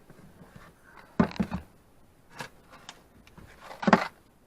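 Food cans and packets being handled and set down while a small cabinet is emptied: three quick knocks a little over a second in, another about a second later, and the loudest clunk near the end.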